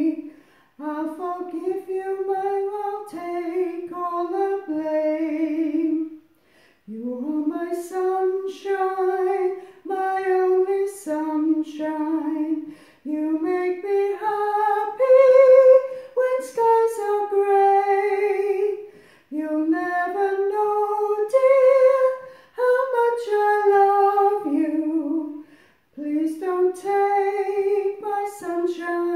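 A woman singing a soprano choir part alone, with no accompaniment audible, in sung phrases of a few seconds separated by short pauses.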